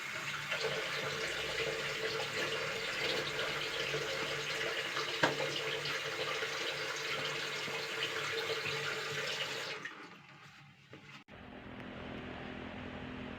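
Water running from a tap into a sink for handwashing, with one sharp tick about five seconds in; the water stops about ten seconds in. After a sudden break, a steady low hum.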